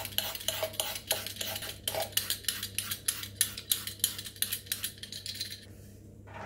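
A hand-held Y-peeler shaving a raw carrot into ribbons: quick scraping strokes, several a second, that stop about five and a half seconds in.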